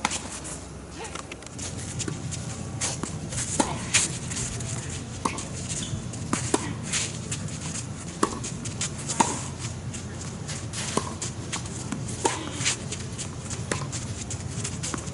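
Tennis balls struck by racquets in a baseline rally on a hard court, a sharp pop every second or so, with tennis shoes squeaking briefly on the court surface between shots.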